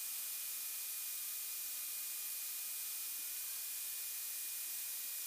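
Steady electronic hiss with two faint, thin whines in it, one of which rises a little in pitch about three seconds in. No engine rumble or other distinct sound comes through.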